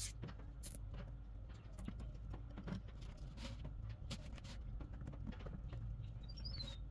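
Nylon cable ties being pulled tight by hand around a glued stack of wooden segment rings: scattered ratcheting clicks and short zips, over a steady low hum.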